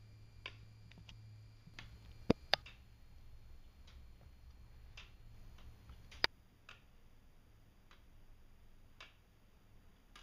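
Wooden weight-driven escapement ticking, its wooden pallets catching the escape wheel teeth: separate, somewhat uneven clicks about once a second, with a few much sharper, louder clicks a little after two seconds and about six seconds in.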